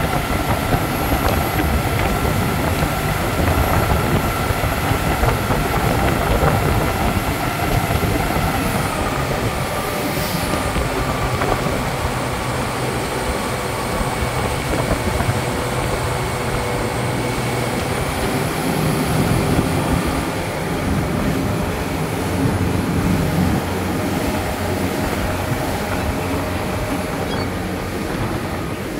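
Motorboat running at speed: a steady engine drone over the rush of the churning wake and spray.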